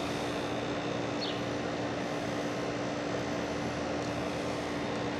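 Steady background drone with a constant low hum that does not change, and a faint short high chirp about a second in.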